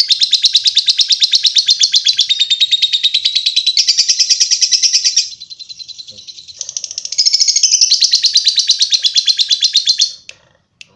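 Lovebird ngekek: a long, fast, high-pitched chattering trill of rapid repeated notes, the extended song that lovebird keepers prize. It softens for about two seconds midway, comes back loud, and stops about ten seconds in.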